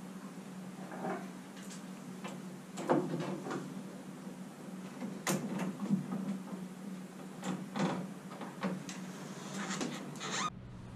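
Handling noises of a line being threaded through a wooden spreader block: scattered light knocks and taps, with short rustles of the rope.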